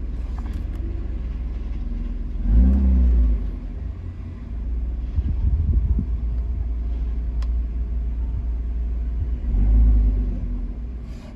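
1994 BMW 325i (E36) straight-six engine idling with a steady low rumble, with two brief louder surges, one a few seconds in and one near the end.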